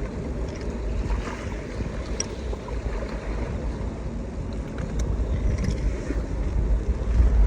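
Wind buffeting the microphone on an open beach, a heavy, uneven rumble, with surf washing underneath and a few faint clicks.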